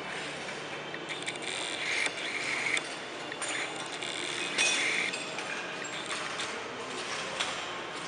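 Broken sheet glass crunching and crackling underfoot as people walk across a glass-covered floor: a steady patter of irregular small clicks and grinds, with louder crunches about two seconds in and again a little past halfway.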